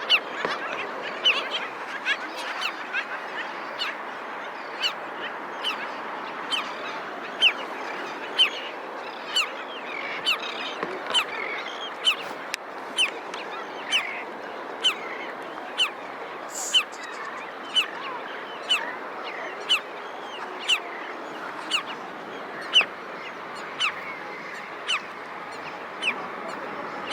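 Black skimmers calling: short, sharp, goose-like barking calls repeated about once a second over a steady chatter of many birds.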